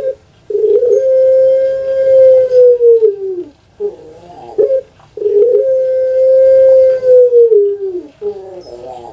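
Puter pelung (a Javanese strain of Barbary dove, Streptopelia risoria, kept for its long call) cooing. Twice it gives a short rolling note, then a long drawn-out coo that holds its pitch for about three seconds and drops away at the end. Another rolling note comes near the end.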